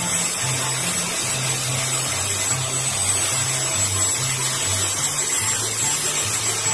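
Electric angle grinder with an abrasive sanding disc running steadily against a wooden bolo handle: a constant high whine over hissing abrasion as the wood is ground to shape. Background music with a stepping bass line runs underneath.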